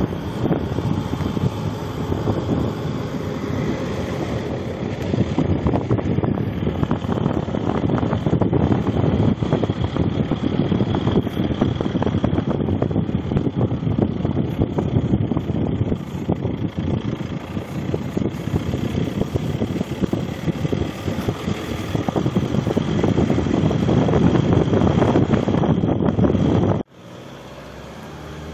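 Car driving along a snow-covered road, with wind buffeting the microphone over the rumble of the moving car. The sound drops suddenly to a much quieter hum near the end.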